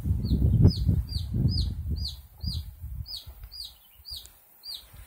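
Baby chick peeping loudly and steadily, short falling peeps about two a second, the distress calling of a chick stuck in a bowl. A low rumbling noise lies under the first few seconds.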